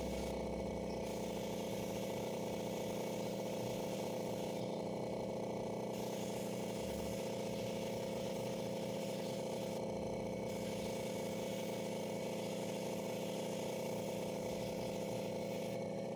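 Gravity-feed air spray gun hissing as it sprays paint, over a steady hum. The hiss thins out briefly three times.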